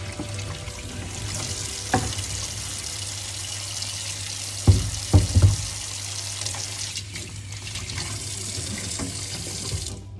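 Kitchen tap running into a sink during washing up, with a knock about two seconds in and a quick cluster of knocks around five seconds. The water shuts off just before the end.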